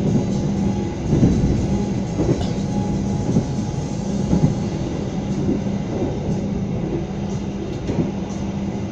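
Interior of a moving passenger train carriage: the steady rumble of wheels on the rails at speed, with a constant low hum and a few faint knocks.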